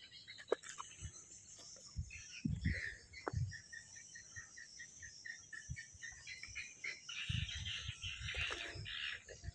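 Tropical outdoor ambience: insects making a steady high hiss, and a bird giving a run of short repeated chirps, about four a second, through the middle. A few dull low thumps are scattered through it.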